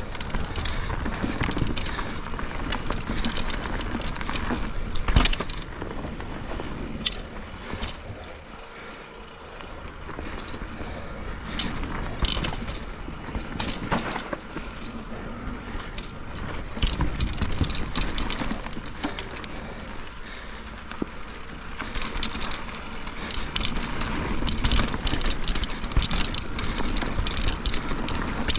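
Mountain bike ridden fast down a wet, rooty trail: a steady hiss of tyres on wet dirt, broken by many sharp knocks and rattles as the wheels strike roots. It eases off briefly about a third of the way through.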